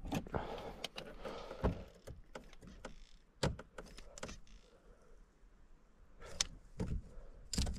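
Scattered clicks and knocks from a grease gun and tools being handled while greasing an outboard engine, with a short rustling hiss in the first second or so.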